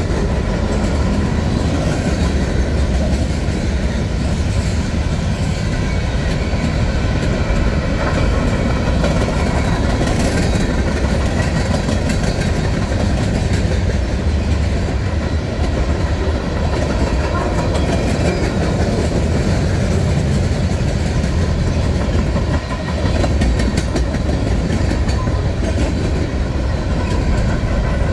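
Freight cars (tank cars, covered hoppers and boxcars) rolling past close by: a steady rumble of steel wheels on the rails, with repeated clicks from the wheels.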